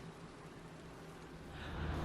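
Faint steady hiss of room tone, with an intake of breath rising near the end.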